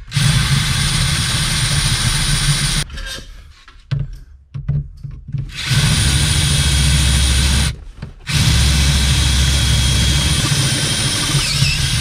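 Cordless drill boring into the steering column's key-lock housing, drilling out the lock pin and spring so the steering wheel no longer locks. It runs for about three seconds and stops. It starts again near the middle, breaks off briefly about eight seconds in, then runs on.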